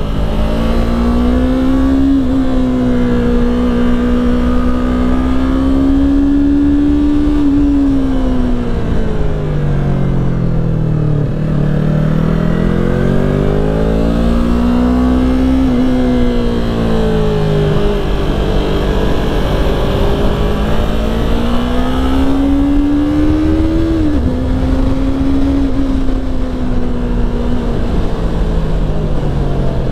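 Motorcycle engine ridden hard on a race track, its pitch climbing under acceleration, holding high, then falling away under braking, several times over, with a few sudden drops in pitch at gear changes.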